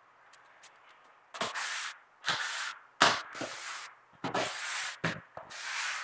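Floor squeegee scraping across a wet concrete floor in a run of about six short strokes, starting about a second and a half in.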